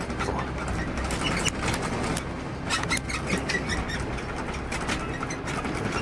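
A steady low rumble with many sharp, irregular clicks and rattles.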